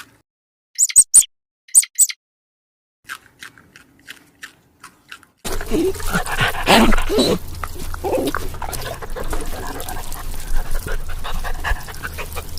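A few sharp clicks, then from about five and a half seconds in a dog barking and whining.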